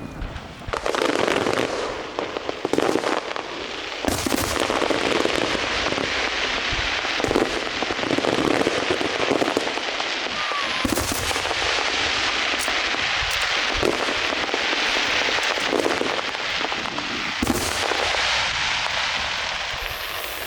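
Aerial fireworks going off in a dense, continuous crackle, with many sharp bangs scattered through it.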